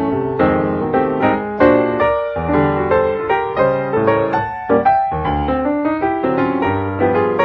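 Background piano music: a steady run of struck notes in a flowing melody over lower bass notes.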